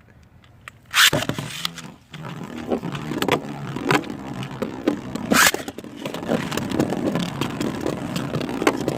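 Beyblades launched with a sudden loud rip about a second in, then spinning tops whirring and scraping around the stadium, with sharp clacks of collisions, the loudest about five seconds in.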